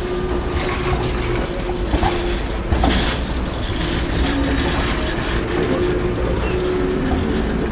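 A Manchester Metrolink T-68 tram passing close by: a steady rumble with a faint wavering hum, and a couple of sharp clicks about two and three seconds in.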